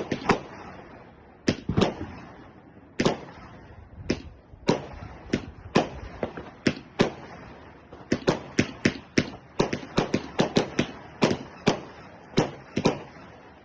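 A 72-shot firework battery firing, one sharp bang after another at irregular intervals, coming in a fast run between about eight and eleven seconds in.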